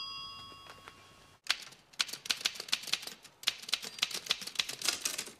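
Old black manual typewriter being typed on: a quick run of key strikes, about six a second, clacking against the platen, with a short break about halfway. A bell's ring dies away in the first second, before the typing starts.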